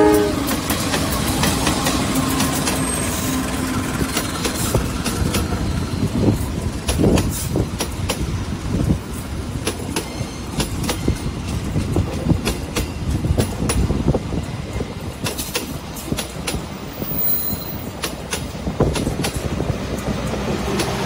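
KAI CC201 diesel-electric locomotive passing close by at the start, with the tail of a horn blast, followed by its passenger coaches rolling past with a steady rumble and the clatter of wheels over rail joints.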